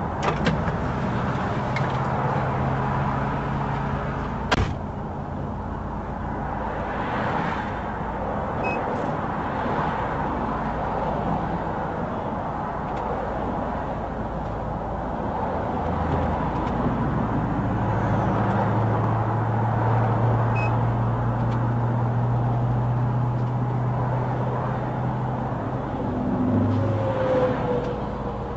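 A motor vehicle running, with a steady low engine hum and noise that shifts in pitch about halfway through. There is a single sharp click about four and a half seconds in.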